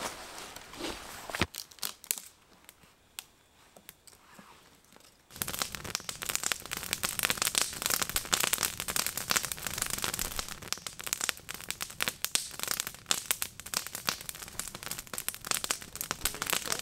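Campfire crackling: a few scattered snaps, then from about five seconds in a sudden dense run of crackles and pops.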